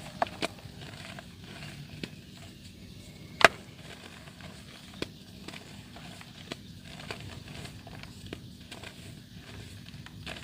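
Soft, wet dirt being crumbled: scattered small crackles and breaks, with one louder snap about three and a half seconds in.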